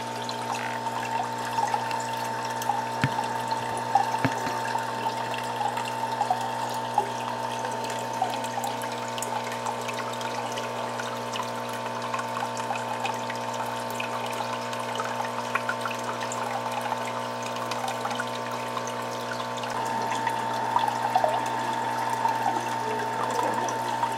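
Water flowing and trickling through a fish-egg hatching jar fed by a pipe, with small scattered ticks of bubbles, over a steady machine hum.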